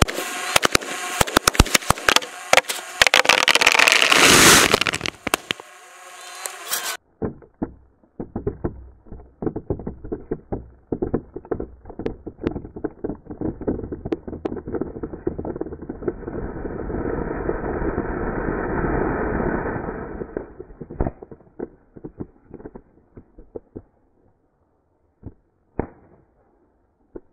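Firecrackers packed inside a large plastic water bottle going off: a dense run of crackling and bangs for the first several seconds, then duller, continued popping with a rushing swell of burning in the middle as flame jets from the bottle. The pops thin to a few scattered ones near the end.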